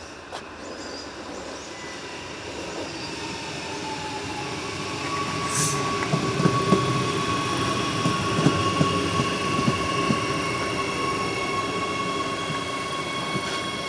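Adelaide Metro 4000-class electric train passing close by, growing louder as it approaches. Around the middle its wheels clack over the track in a quick run of clicks, over a steady high whine.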